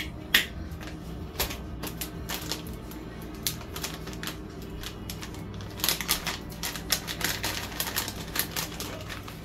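Plastic bag of bacon bits being handled and torn open, a run of sharp crinkling crackles, thickest in the second half, with one sharp click about half a second in. Music plays underneath.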